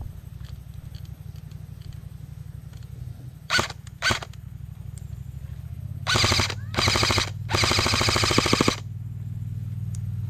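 Airsoft gun firing at night: two single shots about half a second apart, then three rapid full-auto bursts, the last one longest. A steady low hum sits underneath throughout.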